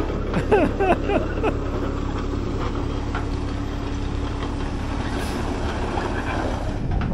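Heavy diesel engine running steadily with a low, even hum. A few short falling-pitch chirps sound in the first second and a half.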